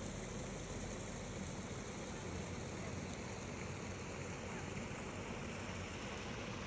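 Steady hiss of a shallow stream running over rocks and spilling over a low stone weir.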